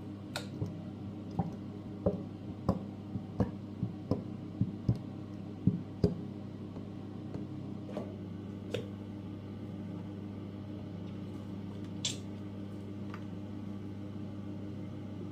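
A run of light taps and clicks, one or two a second for about six seconds, then a few scattered ones, over a steady low hum.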